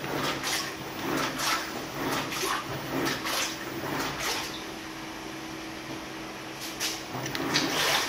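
Water sloshing and splashing in a top-loading washing machine drum as it agitates a load of leafy greens and scallions, over a steady motor hum. The splashes come about twice a second and ease off for a couple of seconds past the middle.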